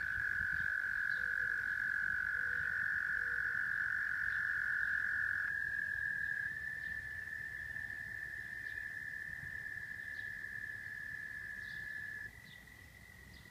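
Frogs trilling: long, unbroken high trills, two or three overlapping at slightly different pitches. One trill stops about six seconds in and another near the end, leaving the chorus quieter.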